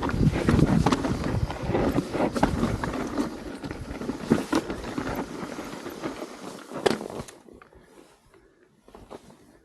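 Wind rushing over the microphone and a mountain bike rattling over rock, with many sharp clicks and knocks, dying away about seven seconds in.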